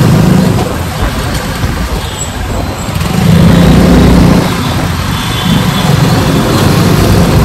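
Motor scooter running on the road: a loud steady rush, with the low engine sound swelling between about three and four and a half seconds in.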